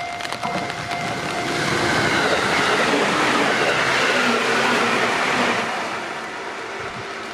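A JR Freight train passing over a level crossing: its rumble swells about a second and a half in, holds for about four seconds, then eases off. A level-crossing warning bell rings steadily at the start and is drowned out while the train goes by.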